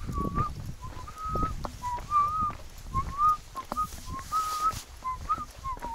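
A man whistling an improvised tune through pursed lips, a string of short notes moving up and down a little around one pitch, over gusts of wind rumbling on the microphone.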